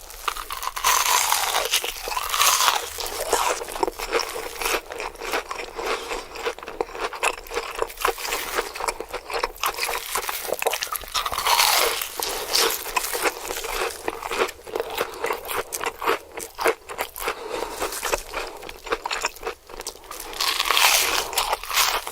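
A person chewing crunchy food close to the microphone: a dense, irregular run of crunches, with louder bursts of crunching three times, near the start, in the middle and near the end.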